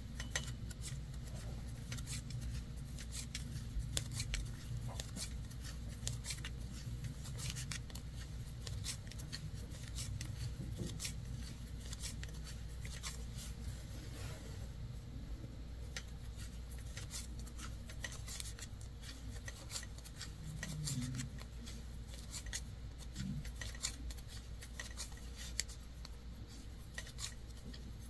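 Wooden 7 mm knitting needles clicking lightly against each other, with the yarn rubbing, as a row of knit stitches is worked: a quiet, irregular run of small clicks.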